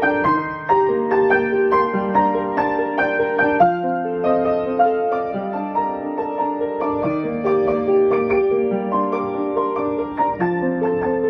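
Piano music: a slow melody of held notes and chords, with no singing.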